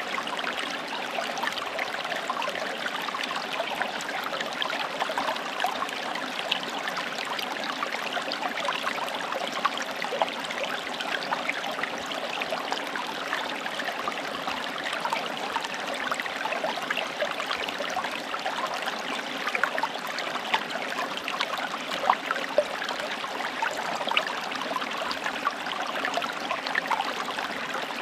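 Forest stream flowing steadily, water trickling and gurgling over stones with many small splashes.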